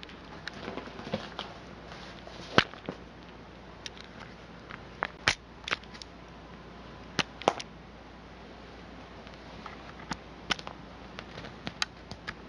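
Scattered sharp clicks and taps, the loudest about two and a half seconds in, as a kitten paws, claws and bites at the camera.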